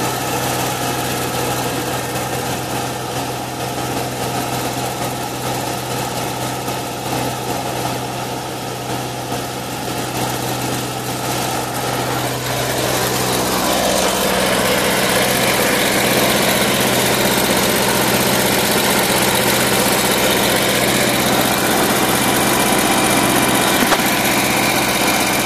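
Kanga mini loader engine running steadily, then revving up about halfway through, louder and higher in pitch.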